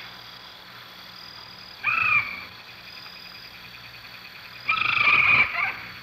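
Two hoarse animal calls, a short one about two seconds in and a longer rasping one around the five-second mark, over a steady high-pitched insect chorus.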